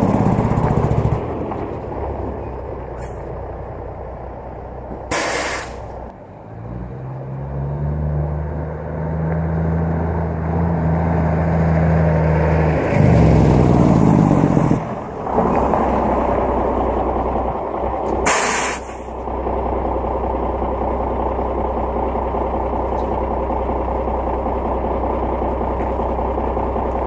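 Diesel truck engine pulling the truck to a stop under its Jake brake (engine compression brake), with two short air hisses from the air brakes, one about five seconds in and one past the middle. The engine then idles steadily for the last third.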